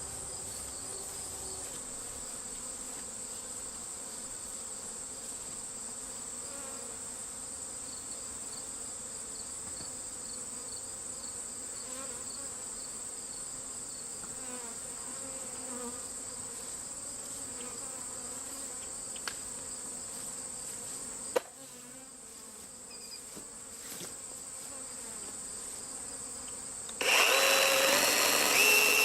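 Honeybees from a swarm buzzing around over a steady high chirring of crickets, with one sharp click about two-thirds of the way through. About two seconds before the end a power tool's motor starts and runs loudly, its whine stepping up in pitch.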